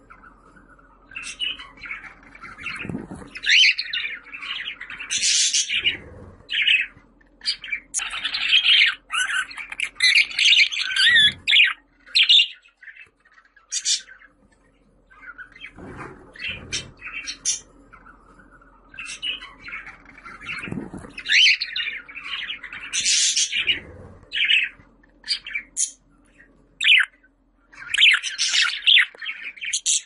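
Budgerigar warbling and chattering: a fast, jumbled stream of chirps, clicks and squawky notes in long bouts, broken by a couple of short pauses.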